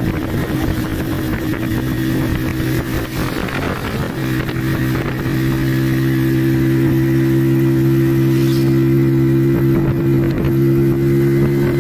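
Tuk-tuk (auto-rickshaw) engine running as it drives along, heard from the passenger seat. For about the first four seconds it sounds rough and uneven, then it settles into a steady note at constant speed.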